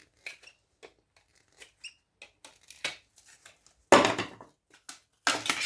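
Scattered clicks and small snaps of parts and tools being handled while electronic scrap is taken apart by hand, with a loud crack about four seconds in and another near the end.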